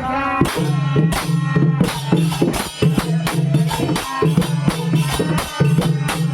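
Bhajan group performance: singing with hand drum and small cymbals or tambourine keeping a quick, steady beat over a low droning tone that stops and restarts.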